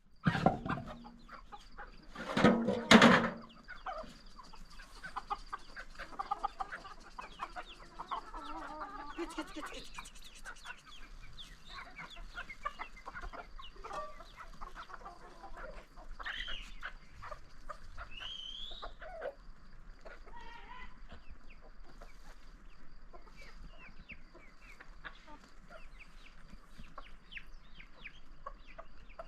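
Domestic chickens clucking and calling, with one loud call about two seconds in followed by many short scattered clucks. A faint steady high tone runs beneath.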